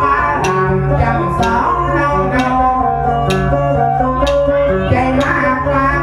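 Northern Thai so ensemble playing an instrumental passage: plucked pin lute and bowed salo fiddle carry a melody over a steady low drone, with a sharp percussive beat about once a second.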